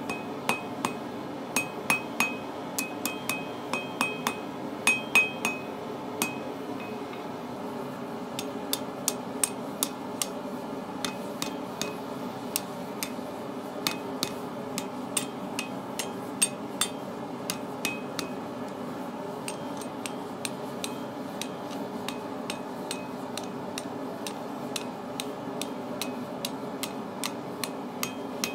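Blacksmith's hand hammer striking steel on the anvil in bursts of blows, the first few seconds ringing clearly, over the steady roar of a single-burner propane forge.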